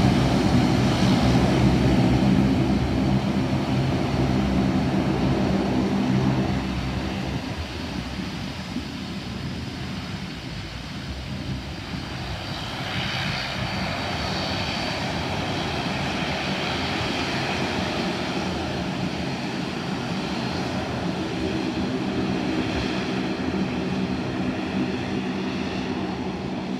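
De Havilland Dash 8 turboprop airliner taxiing with its propellers turning: a steady propeller drone, loud at first and fading after about seven seconds. The drone comes back with a high turbine whine as the plane taxis past.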